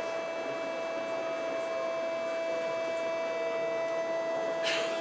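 Tokyo Metro 8000 series train's Mitsubishi thyristor armature chopper whining with a steady, even-pitched hum and its overtones while the train runs, heard from directly above the chopper unit. A fainter tone sinks slightly in pitch midway, and a brief hiss comes about four and a half seconds in.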